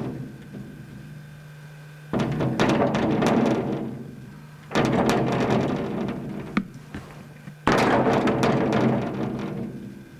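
Window glass rattling in its frame as the building shakes with volcanic harmonic tremor from Usu volcano, in three surges that each start suddenly and die away over about two seconds, roughly every three seconds, with a low rumble under them.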